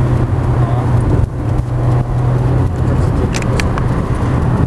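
Renault Mégane Coupé 1.6's four-cylinder petrol engine running steadily while driving, heard from inside the cabin, with its intake breathing through an aftermarket sport air filter. The engine hum is strong and even, with brief dips about a second and two seconds in.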